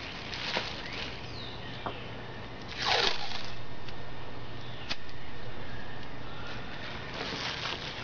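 Plastic bubble wrap being handled, crinkling and rustling in short bursts as it is pressed and tucked into place. The loudest rustle comes about three seconds in, with a sharp click near five seconds.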